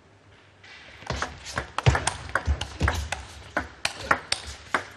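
Table tennis rally: the ball is struck by the paddles and bounces on the table in sharp, irregular clicks, several a second, starting about a second in, with dull low thuds between the hits.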